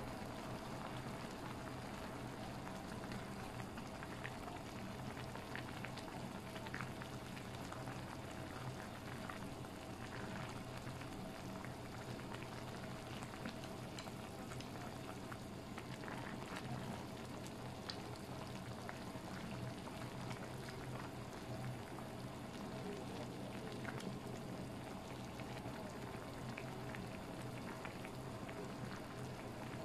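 A pot of kimchi nabe hotpot broth boiling steadily, with a continuous bubbling hiss and scattered small pops, over a low steady hum.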